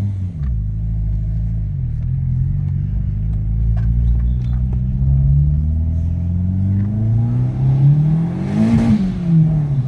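Turbocharged Honda D17 four-cylinder accelerating hard through the gears. Its pitch climbs, drops at a gear change about two seconds in, then climbs again to a peak near the end. A rush of hiss comes at that peak, just before the revs fall at the next shift.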